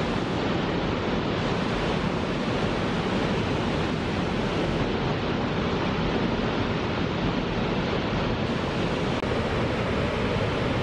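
Water released through a single conduit outlet of Koshibu Dam, a concrete arch dam, jetting from the dam face and crashing into the river below: a steady, unbroken rushing noise.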